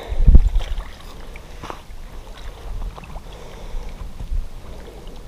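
Wind buffeting the camera microphone, with loud low gusts in the first half second that settle into a steady low rumble with a few faint clicks and taps.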